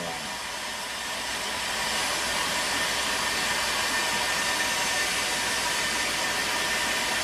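Stanley STEL670 electric heat gun blowing hot air steadily at close range onto a glued fitting, melting the glue so the fitting can be taken apart. It grows a little louder over the first two seconds, then holds steady.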